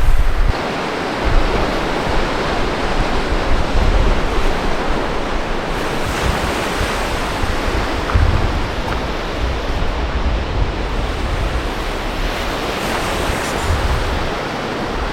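Steady wash of sea surf, with wind gusting on the microphone.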